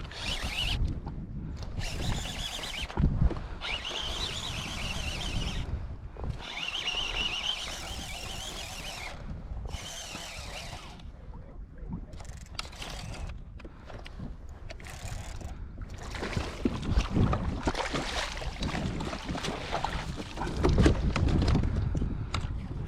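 Fishing reel being cranked in several short runs of one to two seconds while fighting a hooked fish, with rod handling and wind noise in between.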